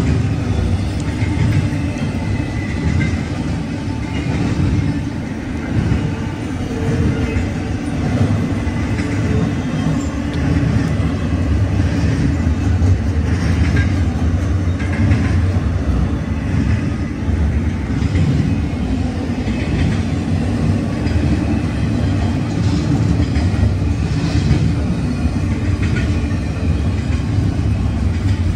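Norfolk Southern double-stack intermodal freight train rolling past: a steady, loud rumble of container cars on the rails, with occasional short clicks from the wheels.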